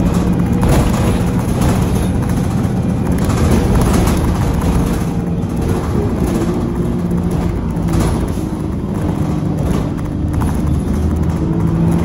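City bus's diesel engine and turbocharger running under way, heard from inside the cabin, with steady whining tones that shift lower about halfway through, over tyre noise on a wet road.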